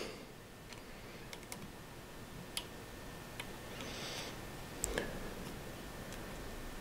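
Faint, sparse small clicks and ticks of an Allen wrench working the set screws on a Vortex PST Gen II scope's elevation turret, and fingers handling the metal turret cap. There is a brief rustle about four seconds in and a soft knock about five seconds in.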